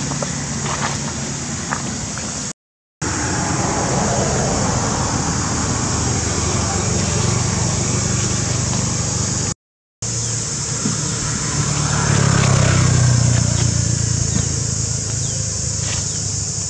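A motor vehicle's engine running steadily in the background, swelling about twelve seconds in, under a constant high-pitched hiss. The sound drops out completely for a moment twice.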